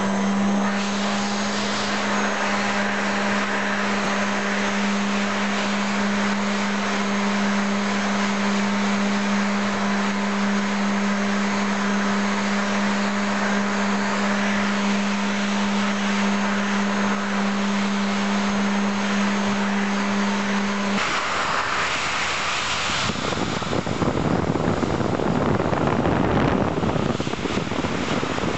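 Vacuum cleaner running loudly, its hose supplying air to drive a Lego model steam engine: a steady motor hum under a rushing of air. About 21 seconds in the steady hum drops out and a rougher, louder rushing noise takes over.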